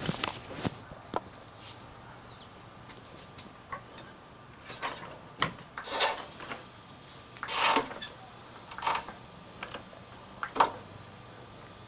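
Floor jack with a wood block on its plate creaking and knocking as it lifts and lowers an engine, mixed with creaks from the torn rubber of a broken upper transmission mount. The sounds come as irregular separate creaks and knocks, the longest a drawn-out creak about two thirds in.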